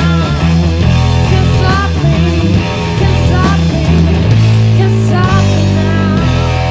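Rough demo recording of a stoner-rock song: guitars and bass with drums, and a high melody line that bends and wavers in pitch several times.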